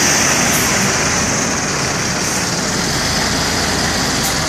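Road traffic passing close by: a steady rush of engine and tyre noise from buses and cars on the highway, with no horn sounding.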